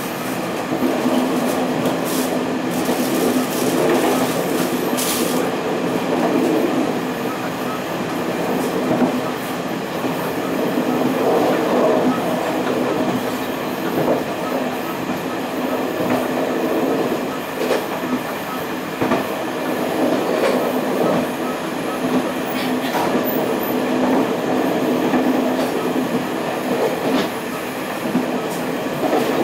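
Taiwan Railways passenger coach rolling along the line, heard from inside at the rear of the train: a steady rumble of wheels on rail, with a few sharp clicks in the first few seconds.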